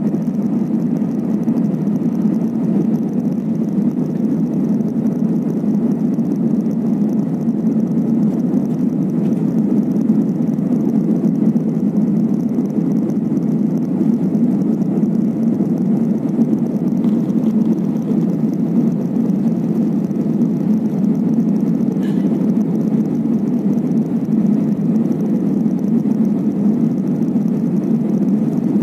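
Steady cabin roar of a jet airliner climbing after takeoff: engine and airflow noise heard from a window seat, a deep even rumble that does not change.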